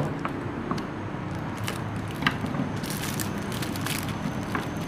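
Product boxes being handled and set down as they are counted: scattered light clicks and taps, with several close together about three seconds in, over a steady low background hum.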